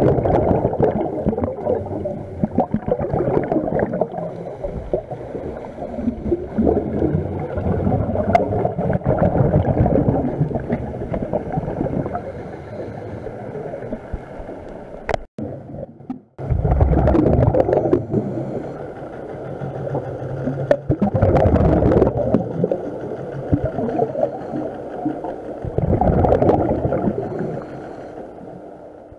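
Muffled underwater rumble and gurgling of scuba divers' exhaled bubbles, heard through a waterproof camera housing, swelling every few seconds. It drops out briefly about halfway through.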